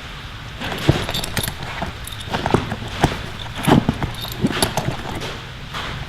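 Hand tools and small parts being handled in a Veto Pro Pac Tech LC tool bag: irregular clicks, knocks and rustling.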